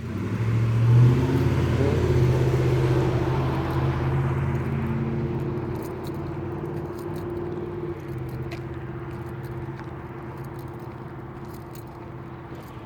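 A motor vehicle's engine passing close by, loudest a second or two in, then fading slowly as it drives away.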